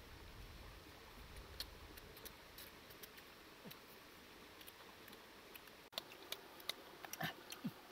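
Faint scattered clicks and small crackles of salak (snake fruit) scaly skin being peeled apart by hand, coming more often and louder near the end.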